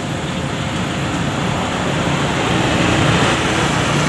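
Road traffic on a busy street, with a vehicle engine hum growing louder in the second half.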